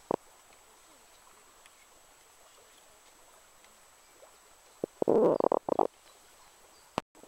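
Carbon dioxide gas bubbling up through the water of a mofette's mud funnel: one gurgling burst of several quick glugs about five seconds in.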